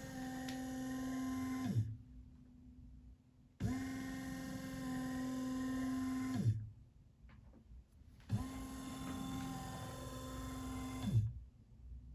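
Motor of a bag-valve-mask ventilator running in repeated cycles, each cycle one squeeze of the bag. A steady whine rises in pitch, holds for about three seconds, drops and stops with a knock, then pauses about two seconds before starting again, roughly every four to five seconds.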